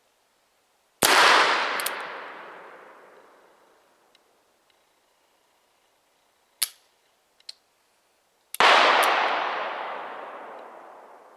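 Two shots from a Pietta 'Buffalo' New Model Army black-powder percussion revolver with a 12-inch barrel, about seven and a half seconds apart, each followed by a long echoing tail. Between the shots come two sharp clicks, the hammer being cocked for the next shot.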